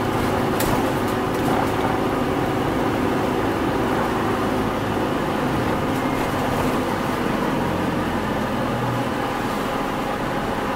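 Running noise inside the cabin of a Hino Rainbow non-step midibus: its four-cylinder diesel engine drones steadily over road noise, and the engine note shifts about two-thirds of the way in. A sharp click sounds near the start.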